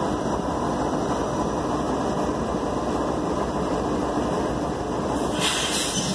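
Diesel-electric freight locomotives idling while the train stands stopped: a steady engine rumble with a faint hum. A brief hiss comes in near the end.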